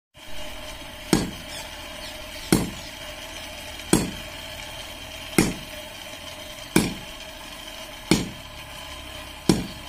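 Blacksmith's sledgehammer striking hot iron held in tongs on an anvil: seven heavy blows in an even rhythm, about one every second and a half, each with a short ring.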